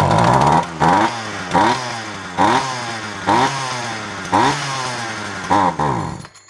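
Poulan two-stroke chainsaw engine running on gasoline poured into the carburetor, its throttle blipped into short rising revs about once a second. Near the end it dies as the fuel runs out.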